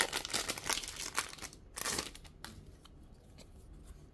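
Foil wrapper of a trading-card booster pack crinkling as it is pulled open by hand. The crinkling dies away about two seconds in, leaving only a few faint ticks.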